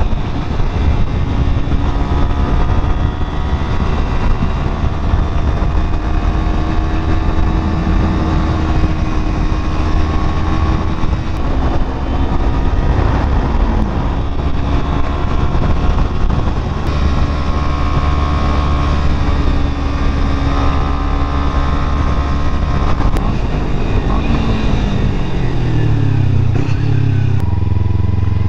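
Motorcycle engine running at road speed, with heavy wind rumble on the handlebar camera's microphone. From about three-quarters of the way through, the engine pitch falls in steps as the bike slows and shifts down, and near the end it settles to a low idle.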